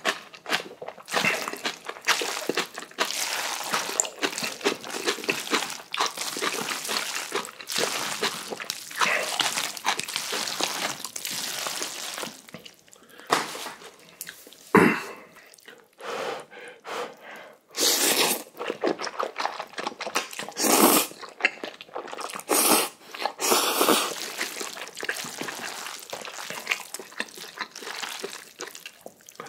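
Close-miked mouth sounds of eating Chapagetti black bean noodles with kimchi: wet chewing, crunching and slurping. A single sharp knock comes about halfway through, and a few short loud bursts of noise follow in the second half.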